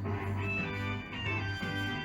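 Background music: held keyboard chords over a steady low bass note.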